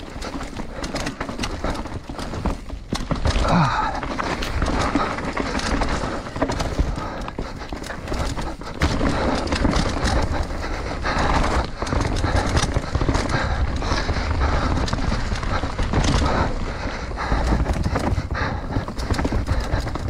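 Enduro mountain bike descending a rough forest singletrack at speed: tyres rumbling over dirt and roots, with frequent rattles and knocks from the bike as it hits bumps.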